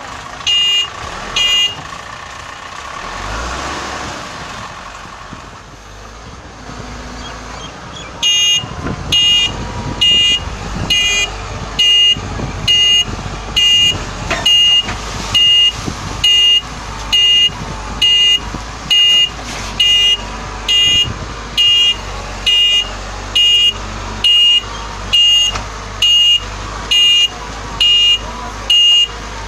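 Reversing alarm of a Cat 424B backhoe loader beeping: two beeps about a second in, then from about eight seconds in a steady run of high beeps a little more than once a second, signalling that the machine is in reverse. The backhoe's diesel engine runs underneath.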